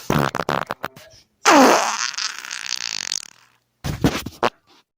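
A person farting. First a quick sputtering run of short pops, then a long, loud fart about a second and a half in that falls in pitch and trails off with a hiss, and a short fart near the end.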